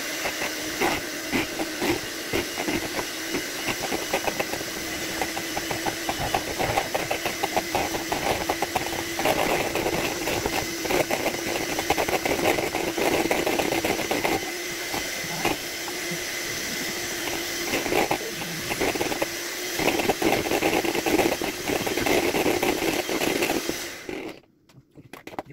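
Electric hand mixer running steadily, its beaters whisking eggs in a bowl, with a constant motor hum and a dense rattle of the beaters against the bowl. It switches off near the end.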